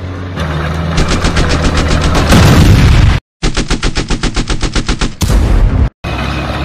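Machine-gun sound effect: rapid automatic fire at about nine or ten shots a second, over a steady low hum. Each of the two runs of fire ends in a louder blast and cuts off abruptly.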